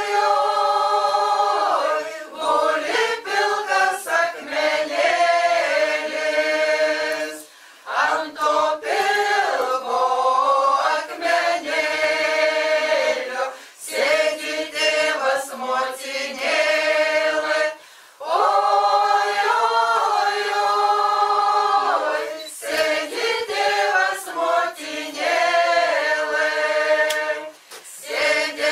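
Unaccompanied choir singing, in long phrases broken by brief pauses.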